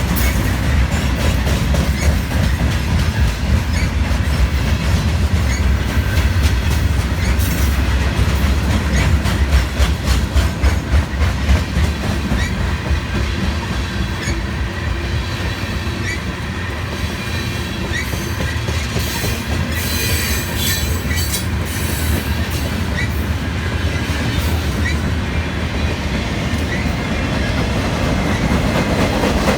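CSX freight train's cars rolling past close by, a steady low rumble with rapid clacking of wheels over the rail joints. A high-pitched wheel squeal rises about twenty seconds in.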